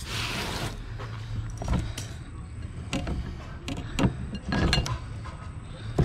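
A hose spray nozzle hisses briefly and stops. Then a large knife cuts a barracuda into steaks on a plastic cutting board, making a series of irregular sharp knocks as the blade chops through and hits the board.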